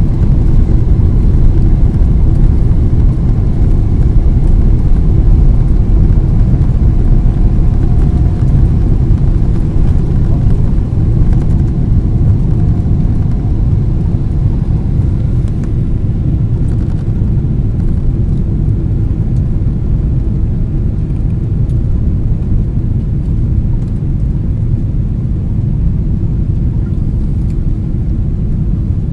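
Cabin noise of a Boeing 777-300ER climbing after takeoff: a loud, steady deep rumble of its GE90 engines and rushing air, easing gradually.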